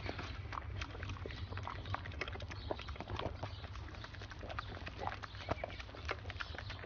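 A pug licking ice cream from a cone: quick, irregular wet lapping and smacking clicks, several a second, over a steady low hum.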